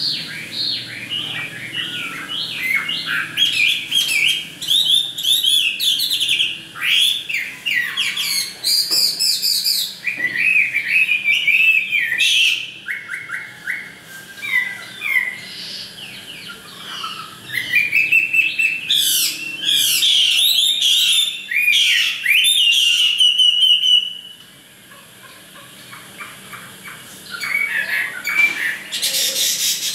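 Chinese hwamei (họa mi) singing loud, rapid, varied phrases of sliding whistles and trills, with a short pause near the end.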